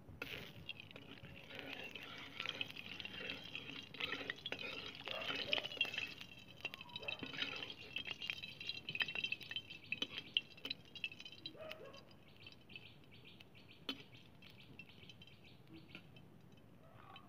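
Mustard oil heating in a metal kadai, sizzling and crackling as a spatula moves through it; the crackle turns to a fainter sizzle about twelve seconds in.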